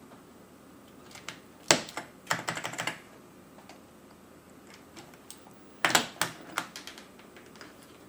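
Plastic keycap clicking and clattering as it is pressed and worked onto an Amiga keyboard's key. It comes in two quick runs of sharp clicks, about two seconds in and again around six seconds.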